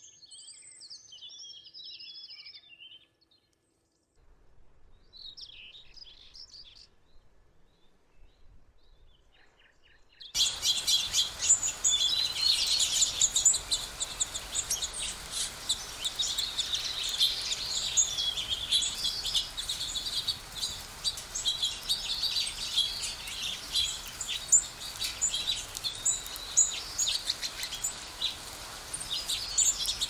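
Small songbirds chirping: a few faint, scattered chirps at first, then from about ten seconds in a loud, dense chorus of many overlapping chirps over a steady background hiss.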